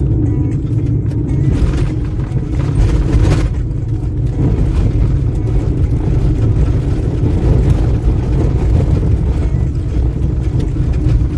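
Road noise inside a vehicle driving over rough desert ground: a steady low rumble of engine and tyres, with rattles and knocks as it goes over bumps, several of them in the first few seconds.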